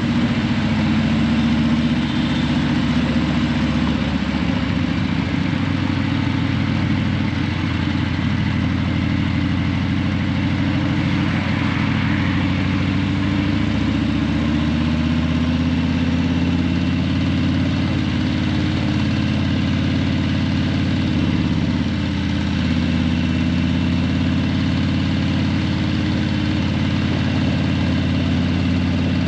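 Harley-Davidson Breakout 117's Milwaukee-Eight 117 V-twin running steadily at low revs through Vance & Hines Eliminator 300 slip-on mufflers, its pitch holding nearly level.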